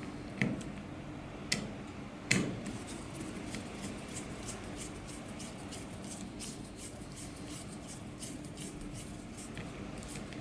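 Small clicks and taps of a wire link being fitted to the terminals of an electrical connection box: three sharper clicks in the first two and a half seconds, then a run of faint, rapid ticks over a steady low hum.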